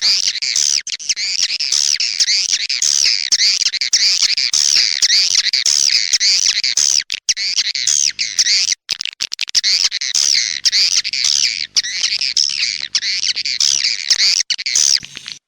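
Swiftlets twittering: a dense, continuous chorus of rapid, high chirps repeating over and over, with a couple of brief gaps in the middle. It is a swiftlet lure call, the kind played to draw wild swiftlets to nest in a swiftlet house.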